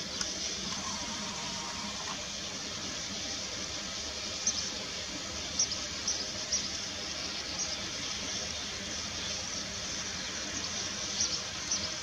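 Sand martins calling at their nesting colony: several short, high chirps stand out, mostly in the middle and near the end, over a steady dense hiss-like background.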